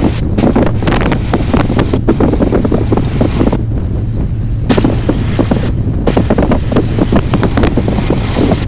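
Hawker Hurricane's Rolls-Royce Merlin V12 engine running, heard from inside the open cockpit as the aircraft rolls over grass. Wind buffets the microphone, and frequent sharp knocks and rattles come from the airframe.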